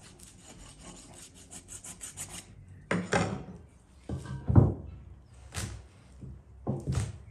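A whole raw lamb carcass being handled on a wooden table: a quick run of scraping strokes over the carcass, then several heavy handling noises as it is lifted and shifted, the loudest a low thump of the meat on the wood about four and a half seconds in.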